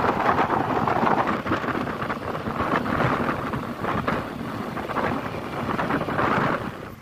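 Wind buffeting the microphone: a loud rushing that swells and dips in gusts.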